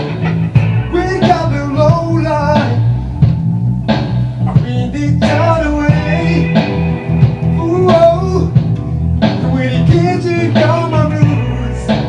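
Music: a song with a singing voice over guitar and a steady beat, in a bluesy rock style.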